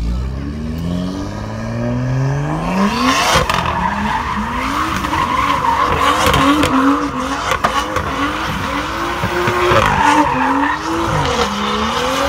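A car engine revving up, its pitch climbing over the first few seconds. Then the engine's pitch rises and falls as the car drifts in circles, with tyres squealing steadily from about three seconds in.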